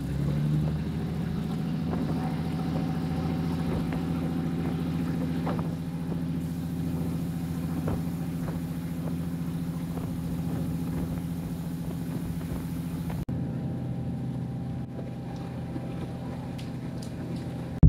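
Diesel-hauled passenger train running, heard from inside a carriage: a steady engine drone with faint scattered clicks of the wheels over the rails. A brief loud noise comes at the very end.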